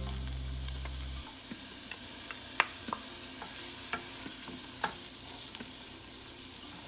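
Chopped onions sizzling in hot oil in a stainless steel pan, stirred with a wooden spatula that knocks against the pan every half second to a second, with one sharper knock a few seconds in. A low steady hum cuts off about a second in.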